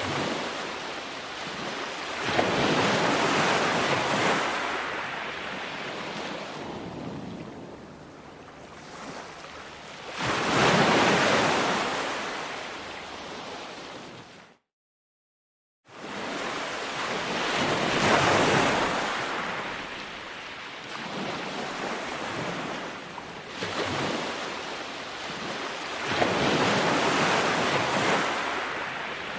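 Ocean surf breaking and washing up on a beach, each wave swelling and fading away about every seven or eight seconds. The sound cuts out completely for about a second midway, then resumes.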